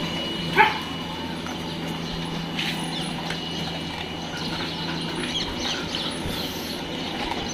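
A dog gives one sharp yelp about half a second in, over a steady low hum, with a few fainter brief sounds later.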